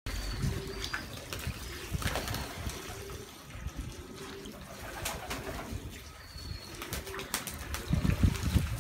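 Racing homer pigeons bathing in a shallow water tray: splashing and wing-flapping in the water, with repeated low cooing. The splashing grows louder near the end.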